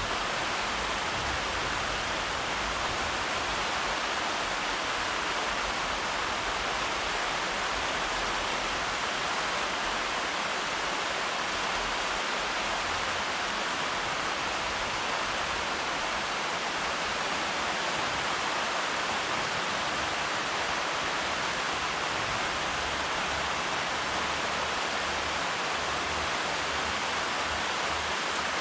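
Steady, heavy rainfall: a dense, even hiss of drops that holds unchanged throughout.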